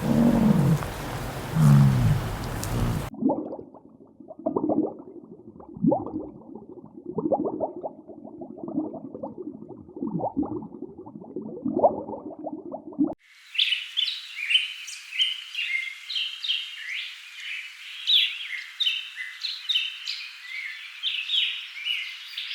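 Deep, repeated animal calls, then about ten seconds of muffled, irregular knocks and clicks, then a dense run of rapid, high bird chirps starting about thirteen seconds in.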